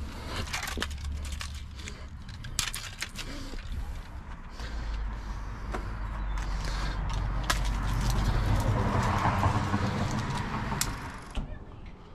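Wind buffeting an outdoor camera microphone as a low rumble, swelling louder late on before dropping off, with handling knocks and a few sharp clicks.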